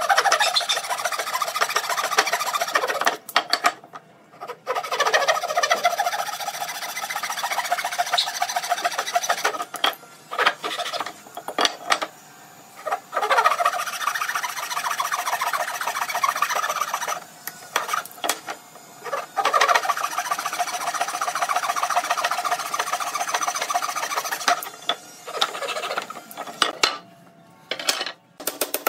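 Hand saw cutting into a clamped block of wood in fast, even back-and-forth strokes. It stops for a second or two several times.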